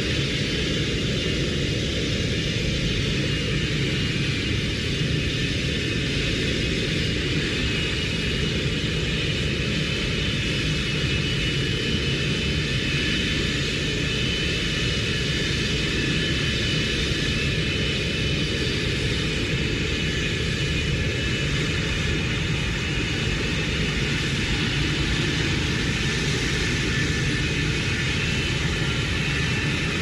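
Jet airliner engines at takeoff thrust, heard from outside: a steady, loud rumble with a high-pitched engine whine made of several held tones over it.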